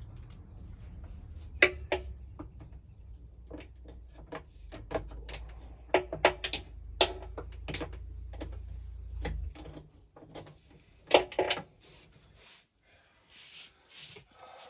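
Irregular metallic clicks and knocks of hand tools on the lawnmower's bolts as they are being undone, over a low hum that stops about two thirds of the way through.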